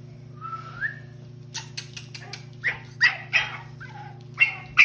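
Pug puppy giving one short rising whine, then a rapid run of short high yaps, getting louder toward the end.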